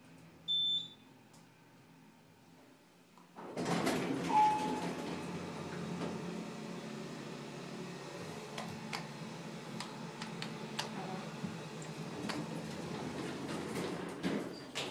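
A short high electronic beep, then from about three and a half seconds in a steady rushing hum with scattered clicks and rattles: an Otis hydraulic elevator car running down between floors.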